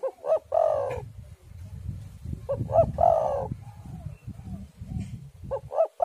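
Spotted dove (tekukur) cooing its three-part call: two short notes then a longer drawn-out coo, repeated about every two and a half seconds, three times, over a low rumble.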